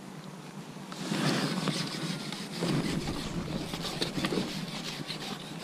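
Wind buffeting an outdoor microphone, getting louder about a second in, with scattered light ticks and a low steady hum underneath.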